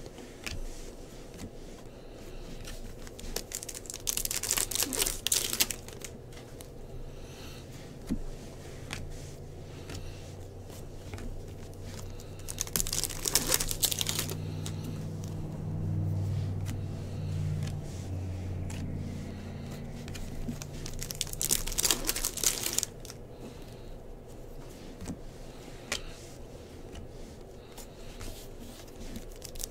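Trading-card pack wrappers crinkling and tearing as baseball card packs are opened, with cards being shuffled and handled; three louder bursts of wrapper rustling stand out. A faint low hum comes and goes in the middle.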